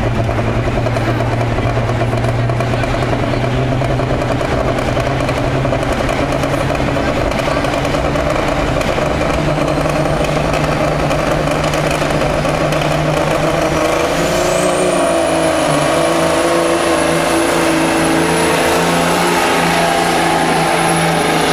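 Caterpillar diesel engine of a Peterbilt pulling semi running hard under load, dragging a weight-transfer sled. About two-thirds through, the engine note shifts and a high whistle rises in and holds.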